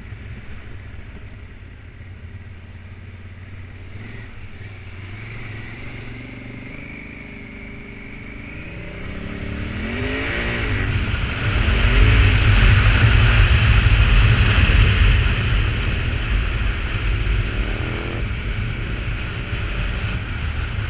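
Honda Africa Twin motorcycle engine running low, then revved up and down several times as the bike drives through a creek, with a loud rush of splashing water from about ten to fifteen seconds in; the engine runs on afterwards with another brief rev near the end.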